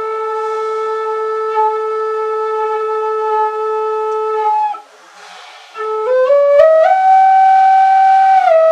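Wooden end-blown flute played solo: one long low note held for about four seconds, a short breath, then a quick run of rising notes up to a higher note held near the end.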